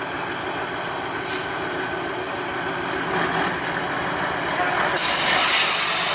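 Tatra 815 8x8 trial truck's diesel engine running under load as it crawls over mud mounds, with two short hisses about one and two seconds in and a steady hiss rising in over the last second.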